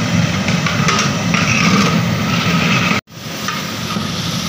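Chicken and browned onions frying in oil in a large aluminium cooking pot, stirred with a long metal ladle, over a loud, steady low rumble. The sound cuts out for an instant about three seconds in, then resumes.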